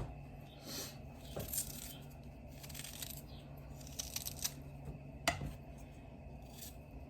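Kitchen handling sounds while ingredients are prepared: scattered small clicks and scrapes, with one sharper click about five seconds in, over a steady low hum.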